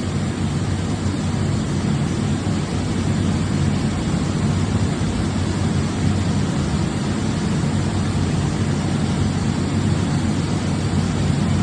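Hurco VMX64i vertical machining center running steady, a low hum under a noisy hiss, as its X axis makes its long traverse during power-up axis calibration.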